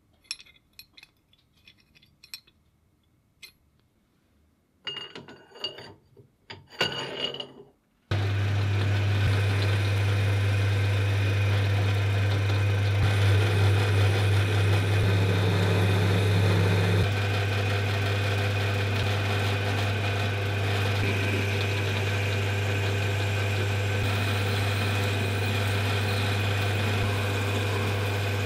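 Scattered clicks and short rattles of small parts being handled. About eight seconds in, a workshop machine's electric motor comes on abruptly and runs steadily with a strong low hum; its sound shifts slightly about halfway through.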